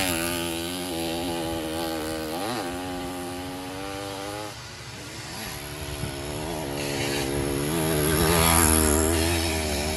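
Small two-stroke engines of racing motorized bicycles revving, their pitch rising and falling as they pass. The sound fades toward the middle, then another engine grows louder near the end.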